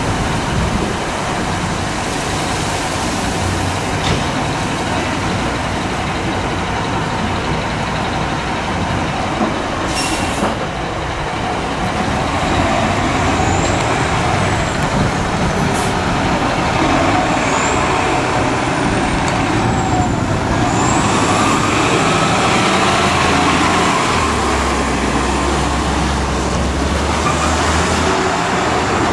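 Fire apparatus setting off on an emergency call: sirens wail up and down from about halfway through over diesel engine noise. A deep engine rumble grows in near the end as a fire engine pulls out, and a few sharp clicks stand out along the way.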